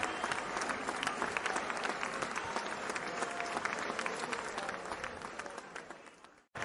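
Crowd applauding and clapping steadily. Near the end it fades out to a moment of silence, then starts again abruptly.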